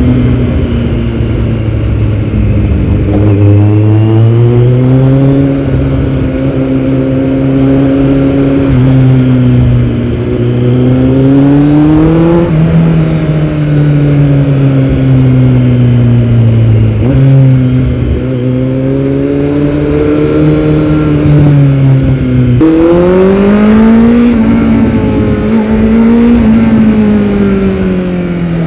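Kawasaki Z900's inline-four engine through a Yoshimura R77 full-system exhaust, heard from on the bike while riding. The revs climb and fall again and again, with sudden steps in pitch as gears change, the biggest jump up coming about 22 seconds in.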